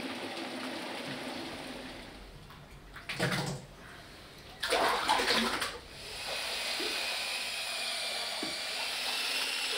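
Watery paper pulp sloshing and swirling in a papermaking vat, with two louder splashing surges about three and five seconds in, then a steady rushing wash from about six seconds in.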